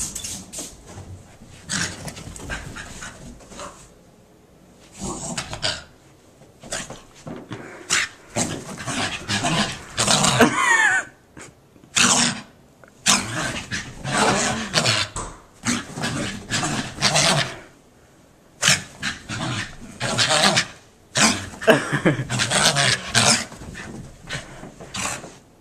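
Bichon Frise dog vocalizing in a long series of short bursts, about a second each with brief gaps between; one burst about ten seconds in sweeps upward in pitch.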